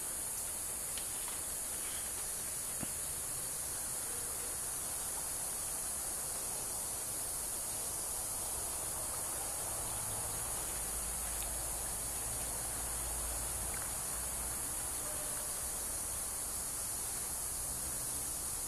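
Steady high-pitched insect chorus of tropical rainforest, a continuous even buzz, with a low rumble about halfway through.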